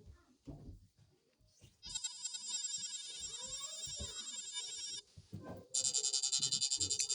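Electronic alarm tones of the kind that sound like an Emergency Alert System alarm. A buzzy, warbling tone starts about two seconds in and lasts about three seconds; after a short gap, a second, louder tone pulsing rapidly starts near the end.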